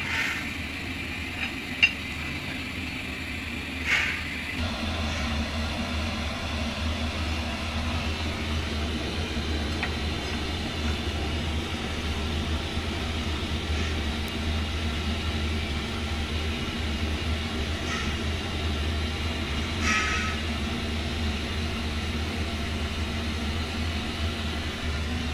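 A steady low mechanical hum with rumble, setting in about four seconds in, under a few short metallic clinks and one sharp clack from the steel screw press and its lever bar on a truck tyre.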